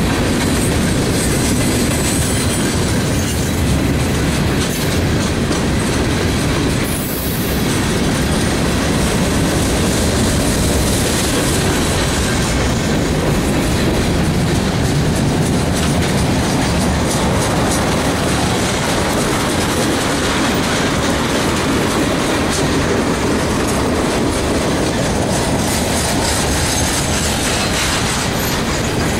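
Freight train cars rolling past close by: a steady, loud rumble of steel wheels on rail with clickety-clack over the rail joints.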